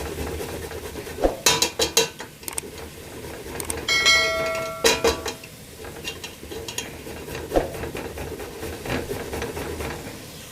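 Metal cooking utensils clinking and knocking against a pan, with one ringing metallic clang about four seconds in.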